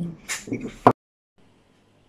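A woman's voice trails off with a breathy hiss, then a sharp click just before one second in as the recording cuts to dead silence; faint room noise with a low hum follows.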